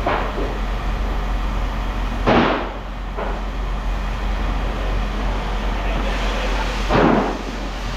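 Steady machinery hum with two short, loud bursts of noise about four and a half seconds apart, each fading within half a second.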